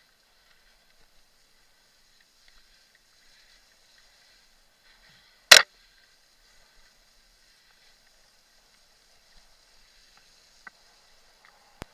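Mountain bike riding along a forest singletrack: a faint steady rustle from the bike and trail, broken by one sharp knock about halfway through and a couple of light clicks near the end.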